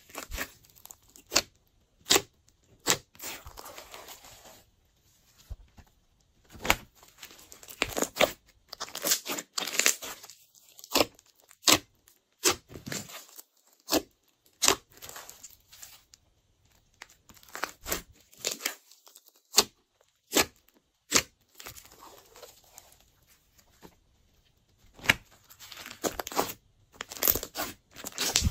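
Glossy slime being squeezed, pressed together and stretched by hand: irregular sharp wet pops and clicks with softer squelching between them.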